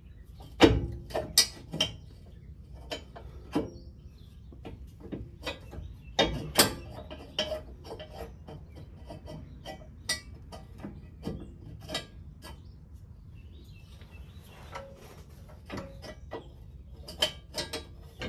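Irregular metallic clicks, clinks and knocks of bolts and hand tools worked against the steel transmission crossmember and frame of a Jeep Wrangler, with a few louder knocks about a second in, around six seconds in and near the end.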